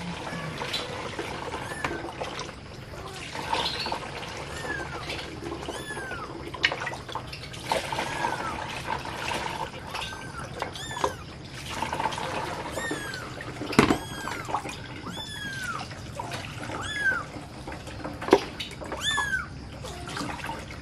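Munchkin kitten mewing repeatedly: short, high-pitched cries about once a second while its mother grooms and handles it, with a few soft knocks of movement.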